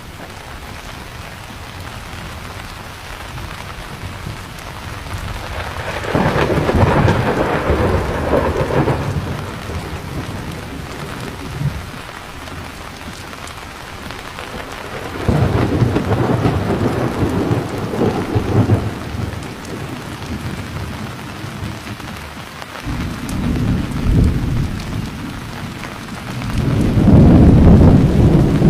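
Steady heavy rain with thunder rolling in four times, about six seconds in, near the middle, and twice near the end, the last roll the loudest.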